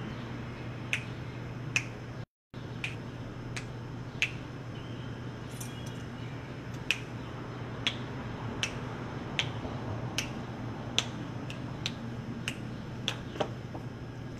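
Fingers snapping: sharp single snaps about once a second, unevenly spaced, over a steady low hum. The sound drops out for a moment a little over two seconds in.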